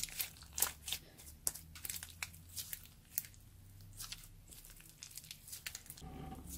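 Grey air-dry clay slime being kneaded and stretched by hand, giving irregular wet clicks and pops, thick in the first few seconds and sparser later.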